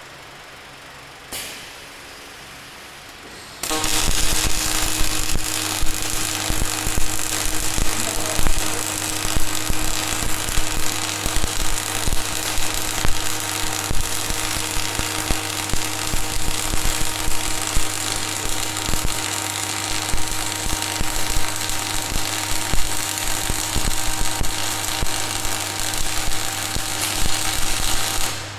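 Welding arc of an automated gantry welding machine, crackling and buzzing steadily over a low hum. It strikes about three and a half seconds in and cuts off near the end, after a single click about a second in.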